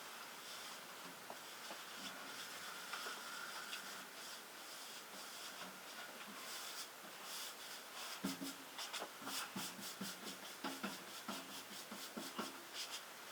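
Cloth wiping down a machine's metal surface to clear off swarf: faint, with a run of irregular rubbing and scraping strokes from about eight seconds in.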